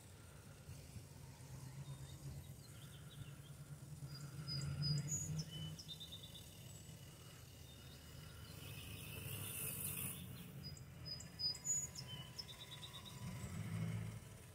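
Small birds chirping in short high calls, twice in clusters, over a faint low hum from a radio-controlled scale truck driving through grass.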